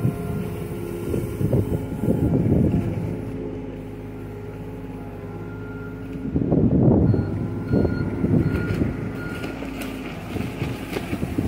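John Deere mini excavator's diesel engine running under hydraulic load as the bucket drags and levels loose dirt, with scraping surges about two-thirds of the way through. Near the end a warning alarm beeps about twice a second.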